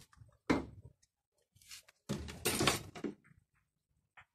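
A thump about half a second in, then about a second of rustling and knocking, with quiet gaps between.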